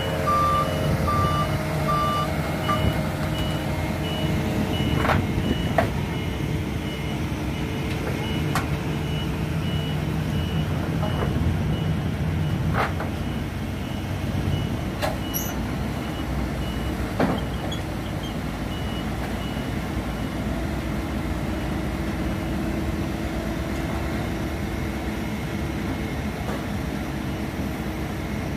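Heavy diesel construction machinery and a low-bed trailer truck running steadily, with a reversing alarm beeping: a short run of lower beeps at the start, then a higher-pitched beeping that stops about two-thirds of the way through. A few sharp metallic clanks sound now and then.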